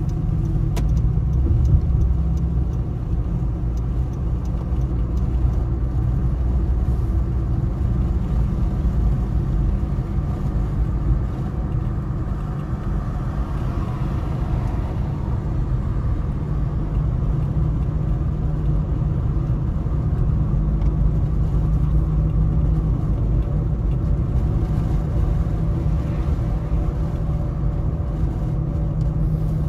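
Steady low rumble of a car driving at road speed, heard from inside the cabin: tyre and engine noise, with a brief swell of noise about halfway through.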